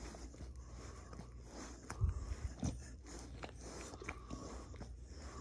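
Pitbull gnawing on a large bone: irregular crunching and scraping of teeth on bone, with a couple of louder crunches about two seconds in.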